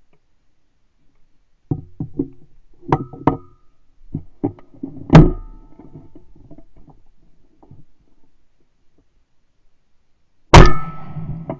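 Knocks and clatter of a shotgun being carried and handled, with one loud knock about five seconds in. Near the end, a single very loud shotgun shot fired at a flying wood pigeon rings out with a decaying echo.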